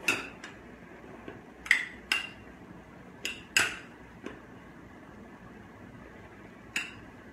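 A metal spoon clinking against small ceramic baking dishes on a sheet pan, about eight sharp clinks at irregular intervals, as chicken and broccoli are stirred to coat them in a cheese sauce.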